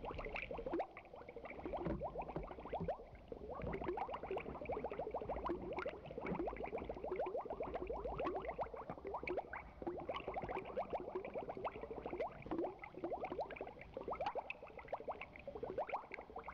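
Aquarium water bubbling steadily: a dense, continuous stream of small bubbles from an air stone or filter outflow.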